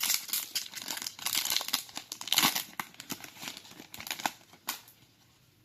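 A foil trading-card booster pack being torn open and crinkled: a dense, irregular crackling that dies away near the end.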